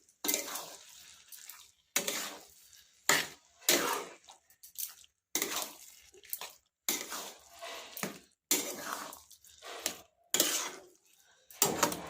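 A spoon stirring amla and jaggery in a cooking pan, scraping and knocking against the pan in about a dozen uneven strokes, roughly one a second.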